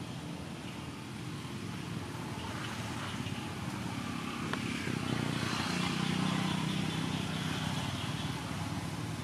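A motor vehicle's engine running at a distance, a steady low hum that grows somewhat louder about halfway through and then eases off.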